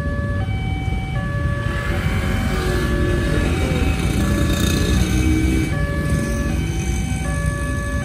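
Railway level-crossing warning siren sounding continuously, stepping back and forth between two pitches about every three-quarters of a second, over the low rumble of motorcycle engines idling at the crossing. The siren sounds hoarse, which the uploader puts down to a short circuit made worse by the long closure of the barrier.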